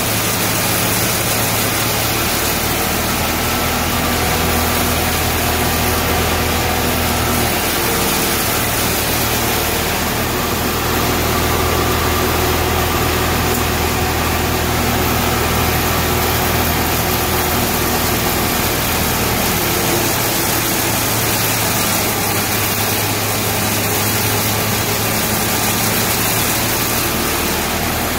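Tractor-driven hammer mill running steadily as it grinds hay, a loud, even machine noise with the tractor's engine humming low underneath.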